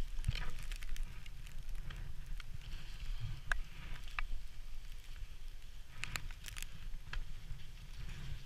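Wind rumbling on the camera microphone during a rappel, with scattered sharp clicks and scrapes from boots and rope gear against the snowy rock.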